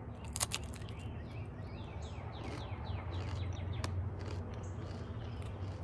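A chip bitten with a crisp crunch about half a second in, with birds chirping in a run of quick falling notes.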